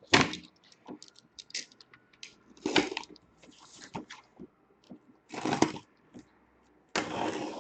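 Cardboard and packing tape crackling and rustling in several short bursts as a sealed case of hobby boxes is opened, with a longer rustle near the end.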